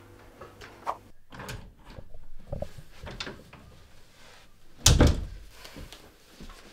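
A few soft footsteps, then an interior wooden door pushed shut with a solid thud about five seconds in.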